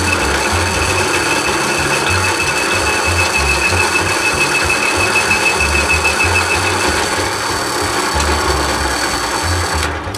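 Electric drill boring a bigger hole through a metal suspension part, the motor running steadily under load with a thin high whine through roughly the first two-thirds. It stops abruptly just before the end.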